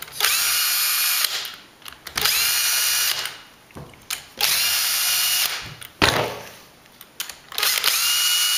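Power drill running in four short bursts of about a second each, its whine rising quickly then holding steady, as it backs screws out of the gearbox housing. Light clicks of handling come between the bursts.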